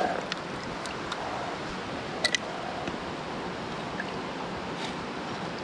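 Shallow creek water running steadily over rocks, with a few faint clicks and one sharper tick a little over two seconds in.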